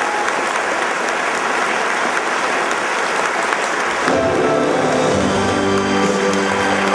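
Audience applauding. About four seconds in, a musical backing track starts with sustained held notes, and the applause carries on more quietly under it.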